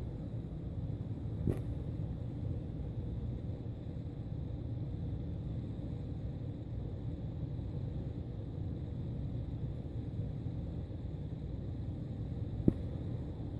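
Steady low rumble of background noise, with two sharp clicks, one about a second and a half in and a louder one near the end.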